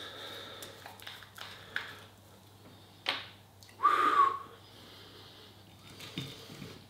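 Small clicks and taps as the screw cap is twisted off a glass hot-sauce bottle and the bottle is handled. A sharp short sound comes about three seconds in, then a louder, brief high-pitched sound that falls slightly just after four seconds.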